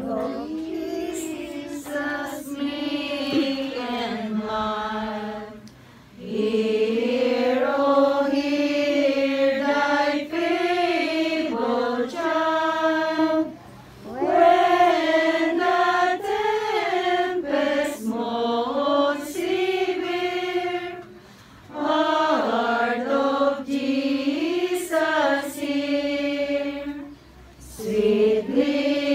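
A group of voices singing a slow devotional hymn, in long held phrases of about six to seven seconds with short breaks for breath between them.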